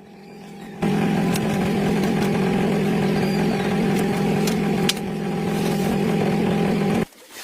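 Old jeep's engine running steadily at idle; it comes in about a second in and stops abruptly near the end.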